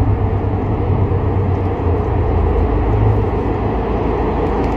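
A train running on the track: a steady low rumble with no change in pitch.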